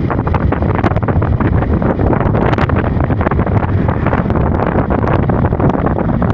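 Wind buffeting the microphone of a phone on a moving motorcycle: a loud, continuous, gusty rumble with the bike's running noise beneath it.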